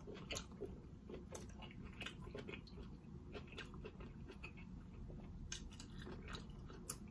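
Faint, close-miked eating sounds of someone chewing lobster tail meat: scattered wet smacks and mouth clicks.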